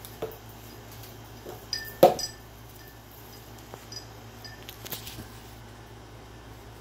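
A few scattered clinks and light knocks from a hanging rope swing with a plastic disc seat as a macaque climbs and swings on it. The loudest is a single ringing clink about two seconds in.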